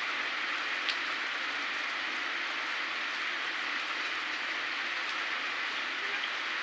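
Heavy rain falling steadily as an even hiss, with one sharp tick about a second in.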